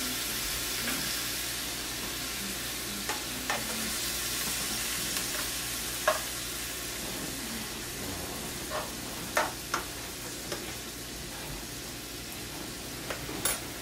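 Bacon strips frying in a pan, a steady sizzling hiss, with a few sharp clicks scattered through it as a fork moves the strips about in the pan.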